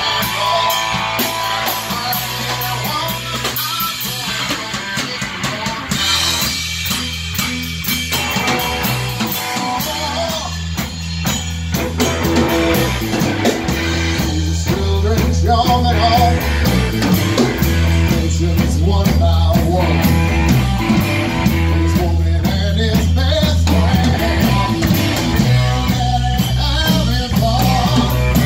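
A rock band playing live in a small room: drum kit, electric guitar and bass guitar, with a man singing into a microphone over a steady bass line.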